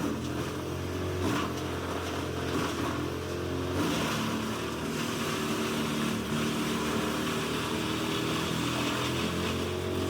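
Large industrial wood chipper running: a steady engine note, with a few short cracks as wood is chipped. The engine note shifts about four seconds in.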